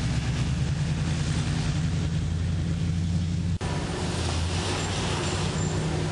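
A vehicle's engine running with a steady low hum over an even rush of noise, briefly cutting out about three and a half seconds in.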